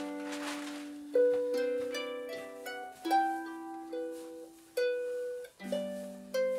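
Background music on a Celtic harp: slow plucked notes and chords, each ringing out and fading before the next is struck.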